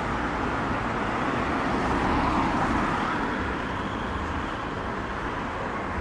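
Road traffic: cars driving along a street, a steady hiss of engines and tyres that swells a little about two seconds in, as a car passes, and then eases off.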